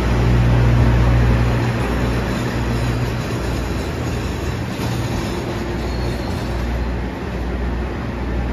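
JR KiHa 40/47 series diesel railcar pulling into the platform, its diesel engine rumbling low and steady over wheel and running noise. Loudest in the first second and a half, then easing slightly as the train slows.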